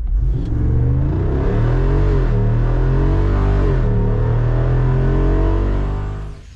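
Jeep Wrangler Rubicon 392's 6.4-litre HEMI V8 revving, its pitch rising and falling several times, then dropping away suddenly near the end.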